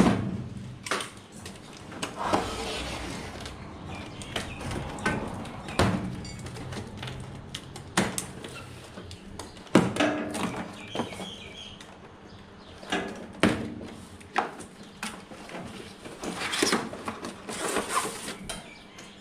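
Irregular knocks, clatters and rustling as a metal tool chest and a cardboard box of tools inside it are handled and the box is lifted out.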